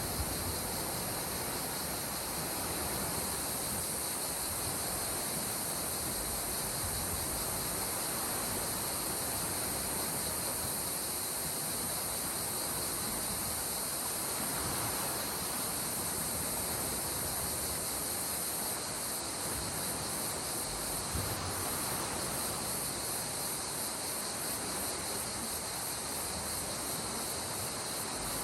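Calm sea water washing gently and steadily at the shore, with a constant high-pitched insect chorus running over it.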